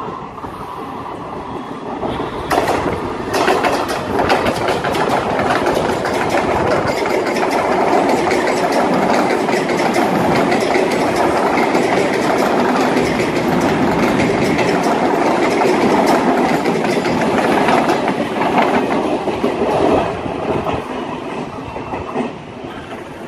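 Mumbai suburban electric local train passing close by, its wheels clattering over the track. It builds a couple of seconds in, stays loud through the middle, and fades near the end.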